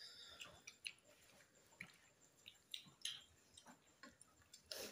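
Quiet eating sounds: faint chewing and the soft squish and clicks of fingers working rice and curry on plates, a few brief ticks spread through.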